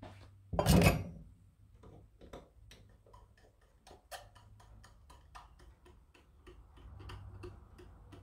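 A loud knock about half a second in, then light, even ticking about three times a second over a faint low hum.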